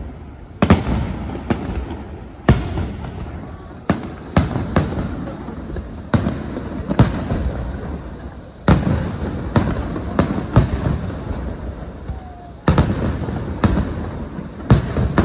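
Aerial firework shells bursting overhead in a steady barrage: sharp bangs about once a second, some in quick pairs, each trailing off in a rolling rumble.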